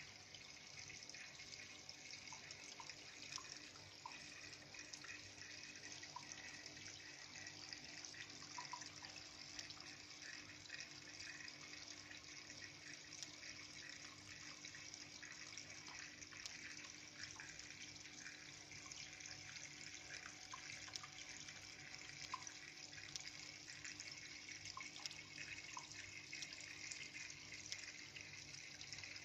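Faint, steady trickle of running water in a paludarium, with small droplet plinks scattered through it and a faint steady hum underneath.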